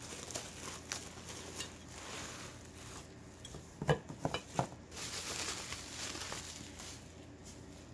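Bubble wrap rustling and crinkling as a ceramic planter figurine is unwrapped by hand, with a few sharp clicks about four seconds in.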